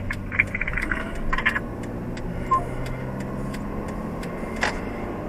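Car engine and road noise heard inside the cabin while driving, a steady low hum with a few light clicks and rattles.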